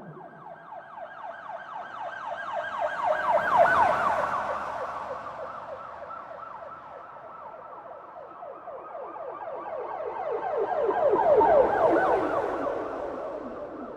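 Police siren sounding a fast, repeating yelp. It grows louder to a peak about four seconds in and fades, then grows to a second peak about twelve seconds in, like a siren vehicle passing by twice.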